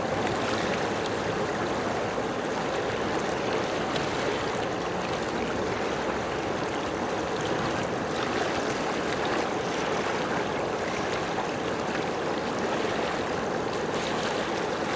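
Flowing water rushing steadily, like a stream or small cascade, an even wash of sound with no breaks.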